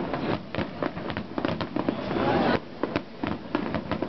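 Fireworks display: aerial shells bursting in rapid, repeated bangs and crackles, with a louder, denser stretch around halfway that stops suddenly.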